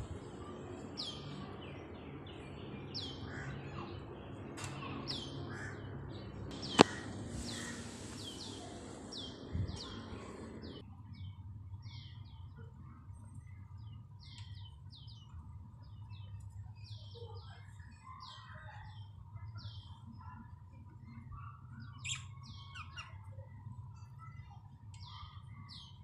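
Budgerigars chirping in short, high, repeated notes, several a second at times, with a sharp click about seven seconds in.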